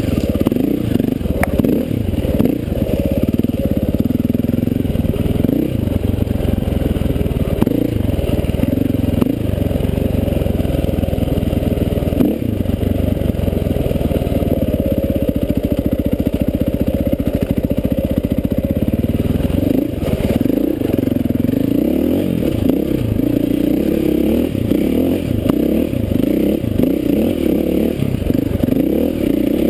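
2005 KTM 525 EXC enduro bike's single-cylinder four-stroke engine running under load, revving up and down as it is ridden along a dirt trail.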